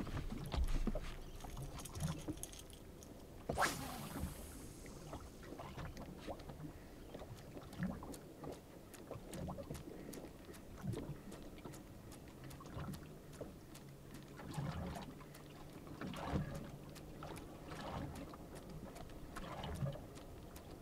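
Water lapping against the hull of a small drifting fishing boat, with scattered light knocks and clicks and one sharp swish about three and a half seconds in.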